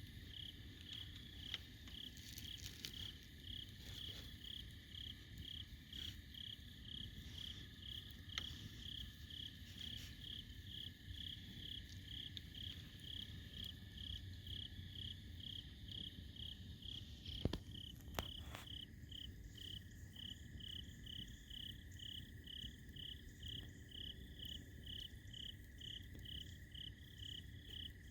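Insects chirping in a steady rhythm, about two chirps a second, over a continuous insect trill, with a few sharp pops from the campfire, the loudest two a little past halfway.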